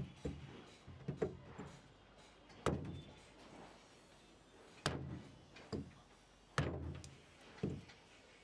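A ram dao blade chopping into a green wooden stick resting on wooden planks. About eight sharp chops land at uneven intervals, each with a dull thud. The hardest land about three, five and six and a half seconds in.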